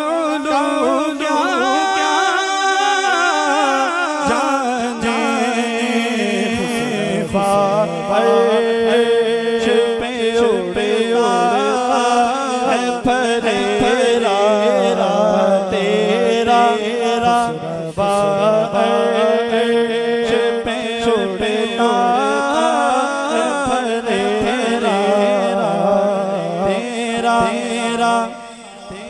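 Male voice singing a naat in long, wavering, ornamented phrases over a steady drone. The singing dips briefly near the end.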